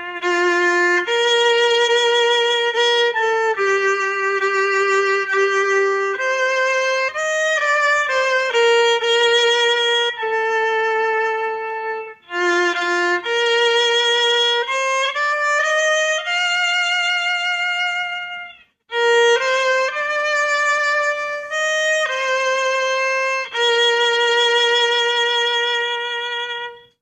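A solo violin plays a slow melody in held notes, phrase by phrase, with short breaks about twelve and nineteen seconds in.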